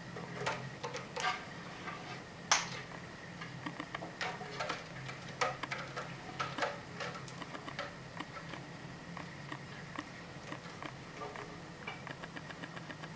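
Irregular small taps, ticks and scratches from a kitten playing with a string toy on a sisal-wrapped cat tree with wooden platforms. The sharpest click comes about two and a half seconds in, over a faint steady low hum.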